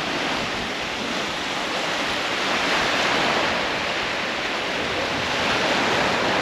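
Sea waves washing onto a sandy beach: a steady rush that swells a little about halfway through and again near the end.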